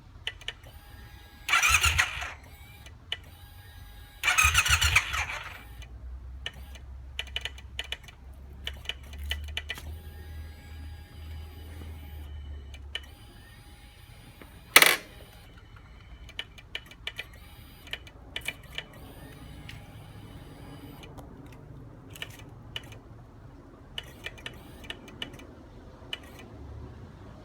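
Triumph T120 motorcycle's starter motor cranking in two short bursts without the engine catching, then a low hum, one sharp loud click and many small clicks from the clutch lever and starter switch. It is a no-start fault that the owner suspects lies in a clutch or starter switch sensor.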